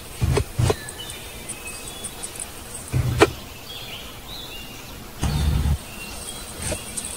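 A knife knocking and scraping in a wooden mortar: a few dull, spaced knocks and one sharp click. Birds chirp in the background.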